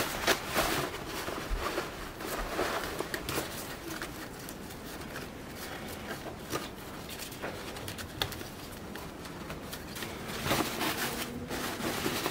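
Cotton fabric rustling and crinkling against a woven bamboo basket as hands tuck and adjust the lining inside it, with scattered small clicks and scrapes. A bird calls faintly in the background.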